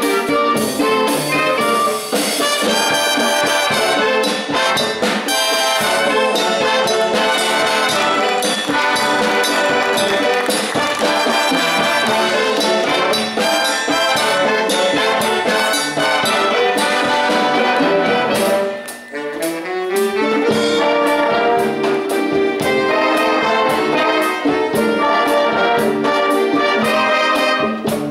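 Youth wind band playing a Cuban-style dance number: brass and woodwinds over a drum kit keeping a steady beat. About two-thirds of the way through the sound briefly dips and a rising run of notes leads the band back in.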